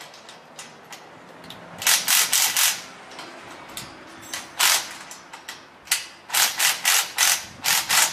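Hand ratchet tightening nuts, clicking and rasping in quick runs of back-and-forth strokes: a run of about five strokes about two seconds in, a single stroke near the middle, and a longer run near the end.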